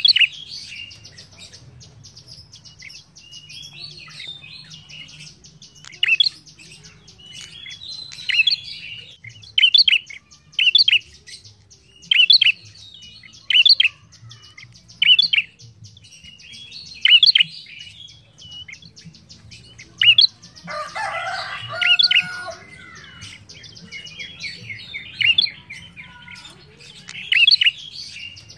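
Ashy tailorbird (prenjak) singing: short, loud, sharp high phrases repeated about every one to two seconds over a fast, continuous high-pitched trill. About two-thirds of the way through, a rougher, lower-pitched call runs for about two seconds.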